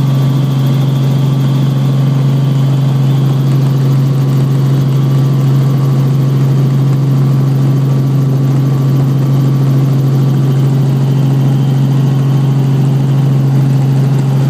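Helicopter in flight heard from inside the cabin: a loud, steady drone of rotor and engine with one strong low hum that does not change.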